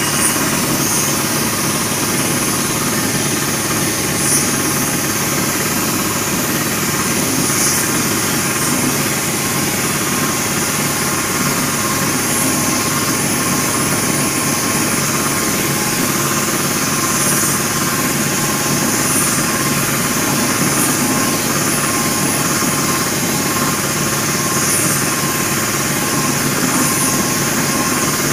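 A steady motor hum under the hiss of a compressed-air spray gun spray-chroming a steel wheel rim, the hiss swelling briefly every few seconds.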